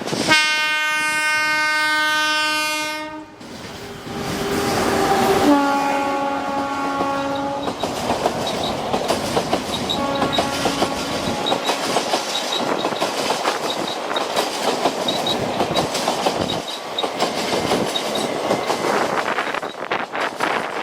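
Indian Railways express train passing. The locomotive horn sounds three times in the first eight seconds: one long blast, then two shorter notes at a lower pitch, with a faint last note about ten seconds in. Through the rest, the coaches' wheels keep up a steady clickety-clack over the rail joints.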